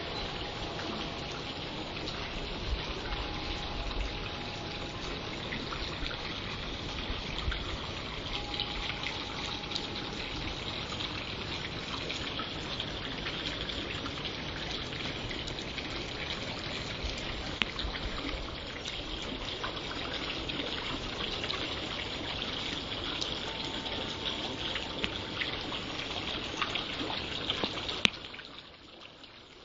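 Wind blowing steadily, a continuous rushing noise. A short click comes near the end, after which the rush drops away.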